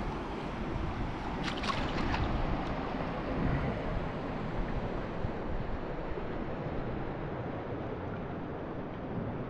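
Steady wind and water noise, with a few short light clicks about one and a half to two seconds in.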